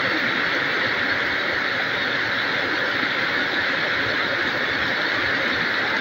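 Heavy rain pouring down, a steady, even hiss that does not let up.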